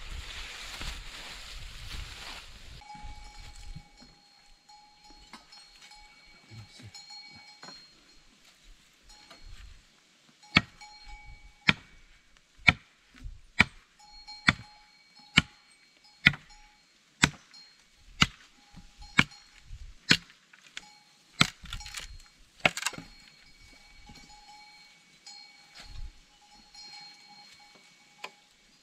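Wood being struck with a hand tool, such as chopping with a hatchet or driving a stake, in a steady series of about a dozen sharp blows, roughly one a second.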